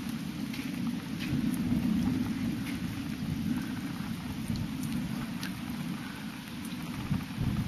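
Thunderstorm: a low, wavering rumble of thunder under a hiss of rain, with scattered sharp ticks of drops.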